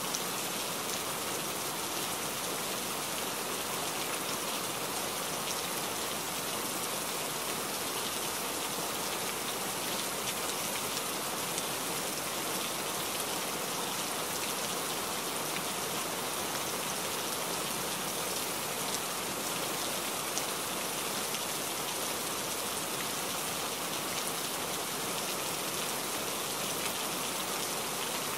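Steady rain hissing and pattering on a truck's windshield, heard from inside the cab while driving on a wet highway, with scattered faint drop ticks.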